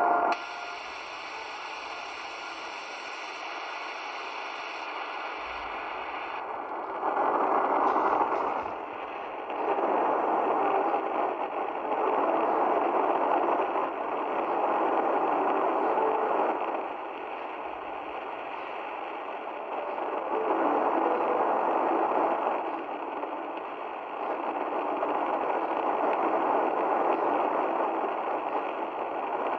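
Shortwave broadcast on 9670 kHz heard through the small loudspeaker of a Tecsun PL-310ET portable receiver: narrow, band-limited programme audio over a bed of hiss. A brighter hiss fills the first few seconds, and from about seven seconds in the signal swells and drops every few seconds.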